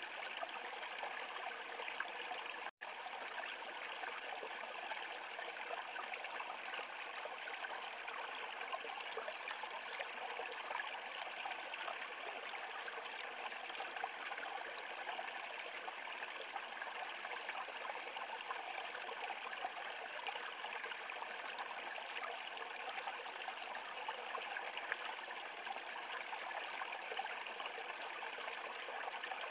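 Small stream cascading over rocks: a steady rush of splashing, trickling water. The sound drops out for an instant about three seconds in.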